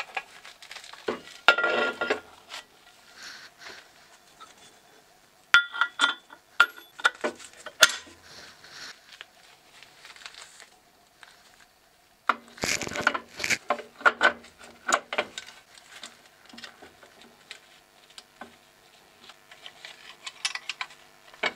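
Steel parts of a home-made lathe milling attachment clinking and knocking as they are handled and fitted together by hand, with bolts and a wrench. Irregular short metallic knocks with brief ringing, in clusters about 2 s in, from 6 to 8 s and from 13 to 15 s, with quieter rubbing and handling between.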